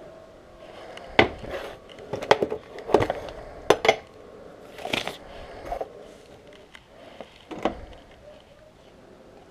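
Mugs, a ceramic tea canister and a kettle being handled on a kitchen counter: a string of sharp clinks and knocks of crockery set down and picked up, spread irregularly through the few seconds.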